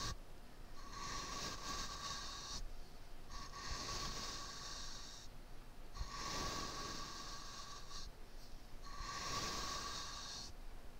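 Makeup brush swept across a microphone in slow strokes: four swishes of about two seconds each with short pauses between, each carrying a steady metallic ring.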